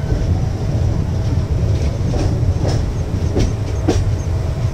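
Mumbai suburban electric local train running at speed, heard at its open doorway: a steady heavy rumble. About four sharp clacks of the wheels over the rails come between about two and four seconds in.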